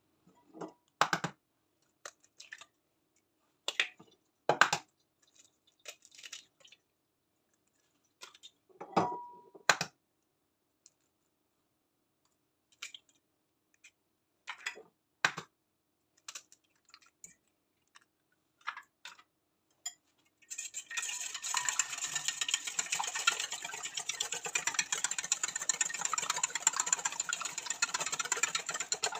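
Eggs being cracked against the rim of a stainless steel bowl, heard as scattered sharp knocks and clicks with pauses between them. About two-thirds of the way in, a wire whisk starts beating the eggs in the steel bowl: a continuous fast clatter of wire against metal.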